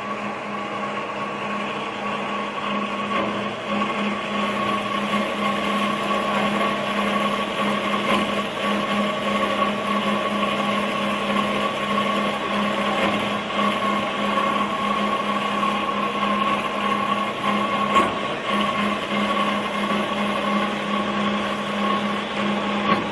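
Semi-automatic 600 mm metal-cutting band saw running, a steady machine hum, with a faint high whine that joins about four seconds in and a single click about three-quarters through.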